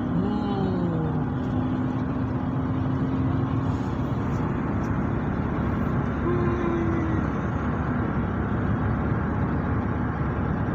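Car driving along at a steady speed: a continuous low engine and tyre noise with a faint steady hum.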